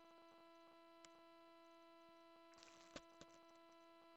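Near silence: a faint steady electrical hum made of several fixed tones in the recording. A faint click about a second in, and a brief soft rustle with two small clicks near three seconds.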